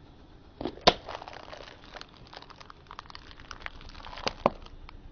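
A plastic capsule ball cracking under a slowly rolling car tyre: one sharp crack about a second in, then a run of crackles and snaps as it is crushed, with two more loud snaps near the end.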